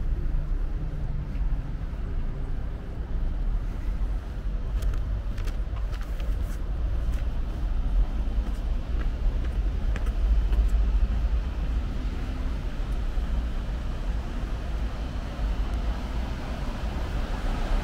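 Steady low rumble of city background noise outdoors, with a few faint clicks.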